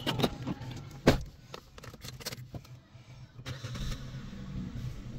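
Car door opened by its outside handle with a latch click, then shut with a single loud thud about a second in, followed by light clicks and rattles inside the car and a low steady hum.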